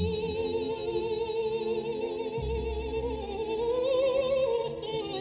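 Background music: a high operatic voice sings long held notes with a strong vibrato, rising in pitch near the end, over a low instrumental accompaniment that comes in about halfway.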